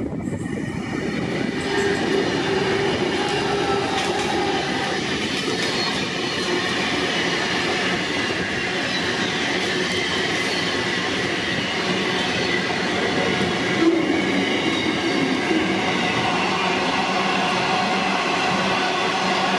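Freight train passing close by: a Pacific National 82 class diesel locomotive goes by as it begins, then a long string of loaded wagons rolls past with a steady heavy rolling noise and thin high wheel squeals.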